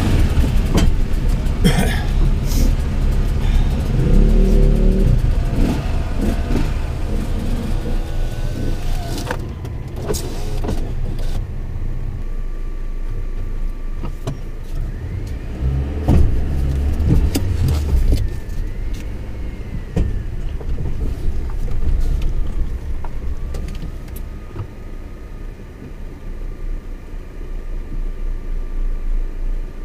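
Suzuki Jimny driven slowly along a rough, uneven green lane: a low engine and drivetrain rumble with knocks and rattles from the bumps. The knocks come mostly in the first dozen seconds and again around the middle, and it runs quieter for a while near the end.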